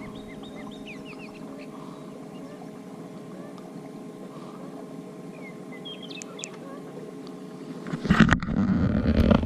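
A boat motor running steadily, with birds chirping briefly now and then. About eight seconds in, a loud rush of noise comes in and takes over.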